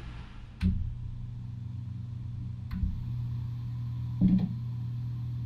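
Vornado PIVOT3 desk fan running with a steady low motor hum, broken by three short knocks; the hum grows a little stronger after the second knock.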